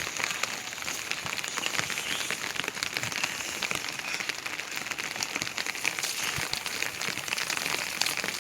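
Heavy rain falling steadily: a constant hiss dotted with many small, sharp drop impacts.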